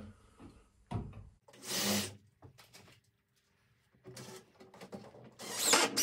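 Cordless drill-driver driving screws into the thin wooden back wall, in two short runs about two seconds in and near the end, with light knocks and handling between.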